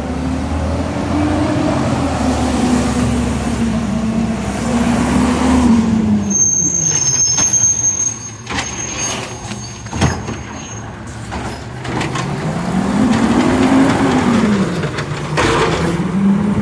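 Natural-gas automated side-loader garbage truck, its engine revving up and falling back in pitch several times as it moves along and pulls up to a trash cart. There is a sharp knock about ten seconds in, and a burst of air-brake hiss near the end.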